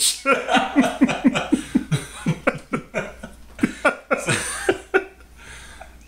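A person laughing hard in a quick run of short bursts, each dropping in pitch, fading out about four and a half seconds in.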